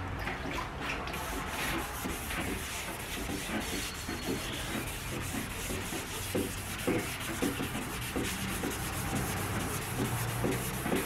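400-grit sandpaper wrapped on a soft sanding block, rubbed by hand over a primed engine cover panel in steady back-and-forth strokes: wet sanding the primer smooth before paint.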